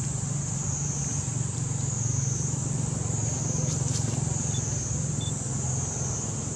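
A steady low motor hum, like an engine running at a distance, with a continuous high-pitched drone above it that slowly swells and fades.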